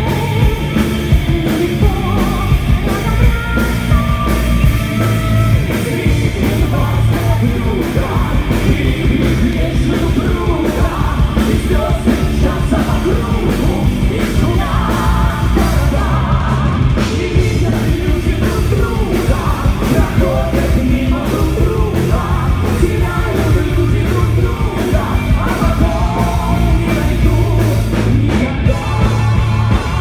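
Live rock band playing loud, with a woman and men singing together over drums, electric guitar and keyboard.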